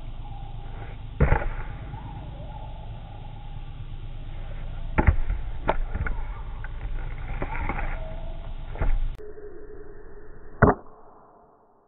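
Split firewood being tossed onto a small pile: a series of hollow wood-on-wood knocks. Near the end, a single sharp strike of a Gränsfors Bruks Small Forest Axe biting into a round of wood.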